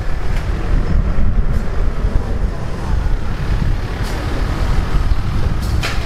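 Strong gusty storm wind buffeting the microphone: a steady, heavy low rumble.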